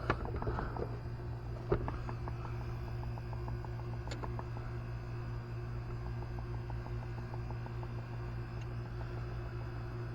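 A steady low mechanical hum with faint, evenly spaced ticking several times a second. Two short knocks come about two and four seconds in.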